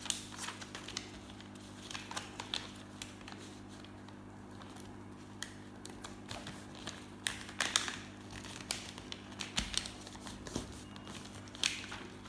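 A sheet of white paper being folded and creased by hand into a paper aeroplane: irregular crinkles, rustles and sharp little ticks as fingers press the folds flat. A steady low hum runs underneath.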